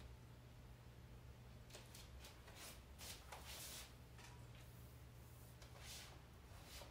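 Near silence: room tone with a steady low hum and a few faint soft rustles a couple of seconds in.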